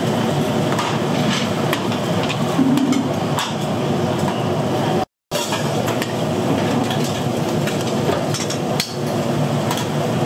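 Busy food-stall kitchen: irregular knocks and clatter of cookware and utensils over a steady background of noise. The sound drops out completely for a moment about five seconds in.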